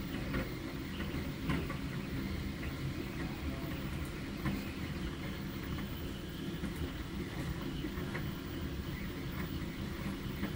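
A steady low rumble with a few faint, short clicks scattered through it.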